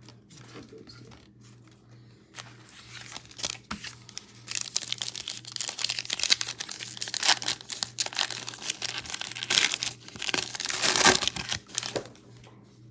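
Crinkling and tearing of a plastic trading-card pack wrapper as it is torn open and handled, quiet for the first couple of seconds and then a dense, irregular crackle that is loudest near the end.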